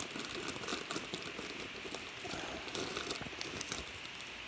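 Handling noise: cloth rubbing against the phone's microphone, a soft steady rustle with many small irregular crackles.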